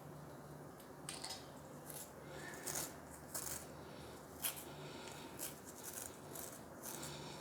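A brush scrubbing a plastic tap aerator filter in short, irregular strokes, starting about a second in, to loosen hard-water salt deposits from its pores.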